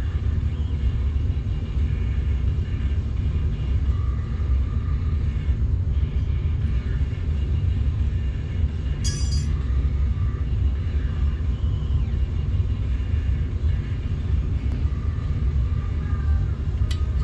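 Steady low rumble throughout, with faint wavering tones above it. There is a short sharp click about nine seconds in and two more near the end, light knocks of small parts being handled.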